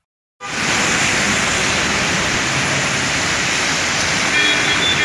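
Heavy rain and car traffic on a wet, flooded street: a loud, steady hiss of rain and tyres running through water, starting just under half a second in.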